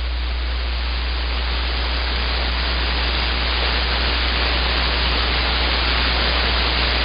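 Radio receiver static: a steady, even hiss with a constant low hum under it, heard on an open channel between transmissions.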